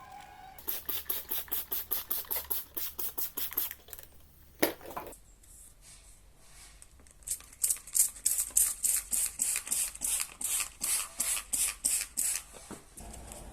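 Sandpaper rubbed back and forth over a plastic headlight lens by hand, brisk scratchy strokes at about four a second in two runs, with a short pause and a single louder scrape between them.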